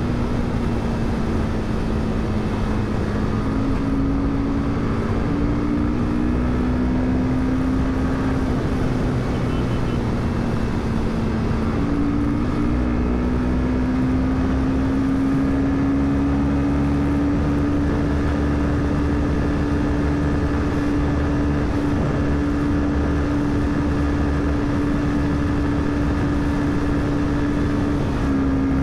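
Royal Enfield Himalayan 452's single-cylinder engine and exhaust running hard at highway speed, a steady drone that sags a little early on, then climbs in pitch about a third of the way in and holds there as the bike accelerates.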